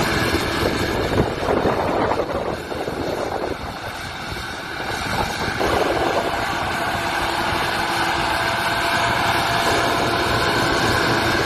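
Fiatagri 180-90 tractor's diesel engine running, easing off for a few seconds about a quarter of the way in, then back to a steady note.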